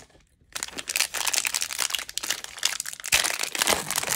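Plastic wrapper of a baseball trading card hanger pack crinkling as it is handled and torn open, a dense, crackly rustle starting about half a second in and running on.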